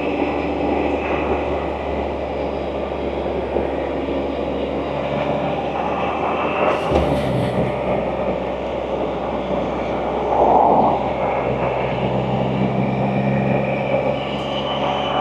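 Can-Am Spyder three-wheeled motorcycle under way, its engine running steadily over wind and road noise. The engine note changes pitch about halfway through and again near the end.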